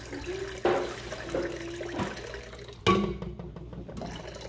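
Pineapple juice pouring from a can into a glass jar of punch, a steady splashing fill. Two sharp knocks cut in, one under a second in and a louder one about three seconds in.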